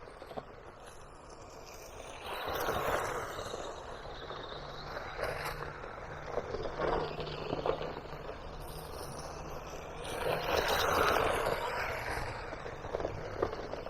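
Battery-powered Haiboxing Protector RC car driving over grass and rough ground: its motor and tyres swell louder twice, about two seconds in and again about ten seconds in, with scattered clicks and knocks.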